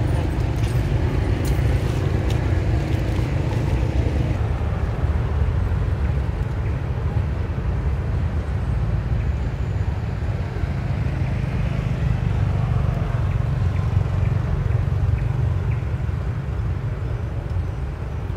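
Steady low rumbling noise with an even level throughout.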